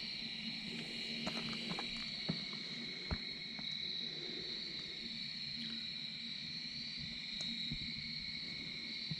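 Steady high-pitched chorus of night insects, with scattered small crackles and pops from a campfire and a low steady hum underneath.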